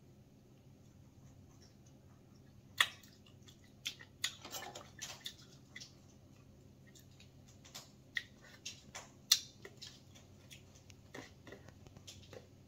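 Cooked crab shell being cracked and picked apart by hand and with a thin pick: scattered sharp clicks and snaps. The first loud snap comes about three seconds in, followed by a run of small crackles, with another loud snap a little past the middle.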